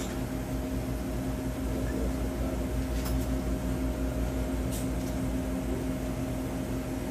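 Steady mechanical hum of convenience-store equipment: a low drone with a couple of fixed tones, and two faint clicks about three and five seconds in.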